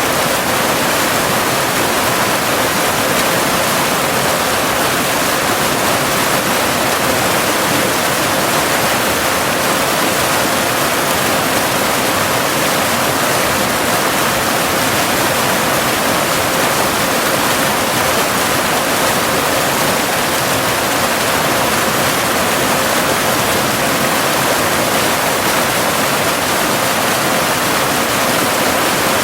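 Cascading waterfall: a steady, even rush of falling water. Under it runs a faint, steady 528 Hz tone, a binaural delta-wave beat.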